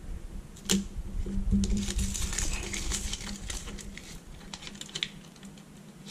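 Hands pressing and smoothing aluminium foil tape and an LED strip onto the metal edge of an LCD panel: irregular small clicks, taps and crinkling rustles, with one sharper click about a second in.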